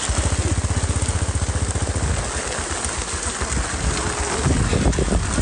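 Small engine idling close by with a rapid, even low pulse, over the steady hiss of heavy rain.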